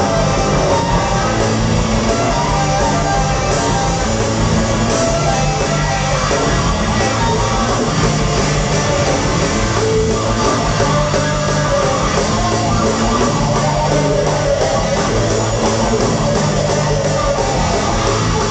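Live rock band with electric guitar, bass and drums playing loud, heard from the audience through a small camcorder's microphone, with the bass notes pulsing in a regular pattern.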